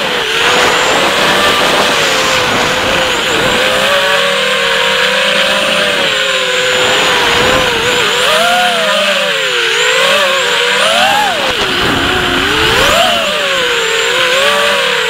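Brushless motors and propellers of a 250-size FPV racing quadcopter (Racerstar 2204 motors) whining in flight, heard from the drone's onboard camera. The pitch rises and falls with throttle, swinging up and down more sharply in the second half, over a steady rush of prop wash.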